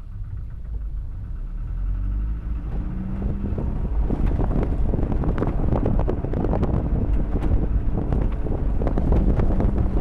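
A 1987 Toyota pickup's engine pulling up through second gear, its pitch rising. About four seconds in, a fast, continuous clattering sets in over it. The driver calls it a pretty interesting noise and wonders whether it comes from a hub.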